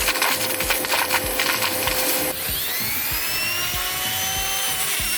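Rotary tool grinding carbon deposits out of a diesel injector seat, then after a cut a small electric motor spinning up with a rising whine and running steadily. Background music with a steady beat plays underneath.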